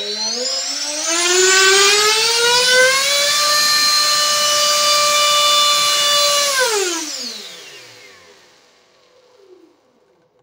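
3D-printed five-stage axial compressor driven by a high-powered electric motor, spinning up with a rising whine, holding a steady high whine for about three and a half seconds, then winding down with a falling whine that fades out.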